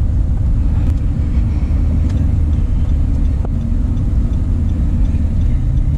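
Steady low rumble of road and engine noise inside a car's cabin while driving along at a steady speed.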